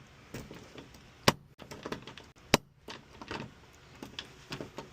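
Bump key being struck into a door lock: two sharp taps about a second apart, with lighter clicks and rattles of the key in the lock between them.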